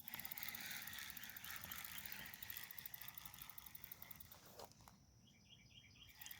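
Faint outdoor chorus of chirping insects with a steady hiss, and a run of quick, evenly spaced chirps about five seconds in.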